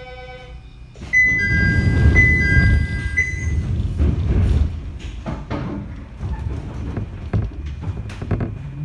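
Jōmō Electric Railway 700 series electric train (ex-Keio Inokashira Line 3000 series) setting off from a station. A steady tone stops just after the start. A heavy thump and rumble comes about a second in, with a high two-note signal repeating for a couple of seconds, then scattered clunks. Near the end the traction motors begin a rising whine as the train starts to move.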